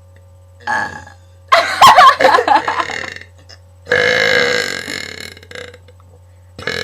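Two girls burping deliberately. A short burp comes about half a second in, then two long, loud belches of well over a second each, and a short one near the end.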